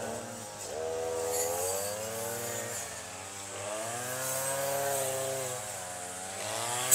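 Small two-stroke brush cutter engine running, its pitch rising and falling slowly as the throttle is opened and eased off while it cuts grass.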